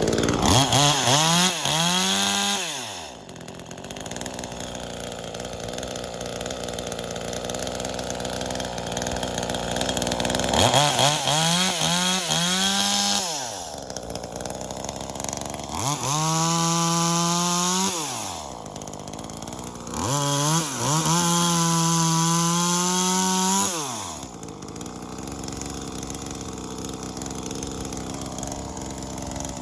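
V-Modest 2511T, a clone of the Echo 2511T top-handle chainsaw, its small two-stroke engine idling between four bursts of throttle, each two to four seconds long, the pitch climbing and then falling away with each one.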